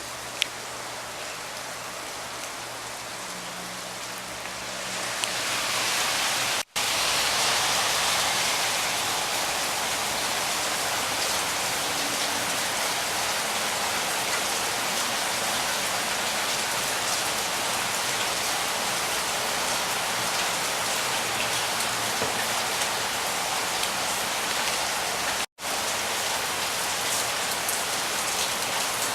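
Heavy rain falling, a steady hiss of drops on surfaces that swells louder about five seconds in and then holds. The sound cuts out for an instant twice.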